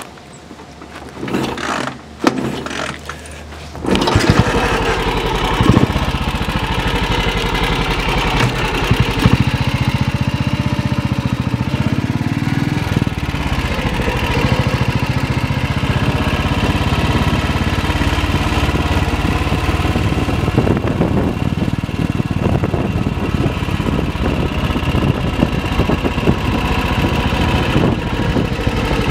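BSA WM20 motorcycle's single-cylinder side-valve engine catching about four seconds in after a couple of short sounds, then running steadily as the bike is ridden off.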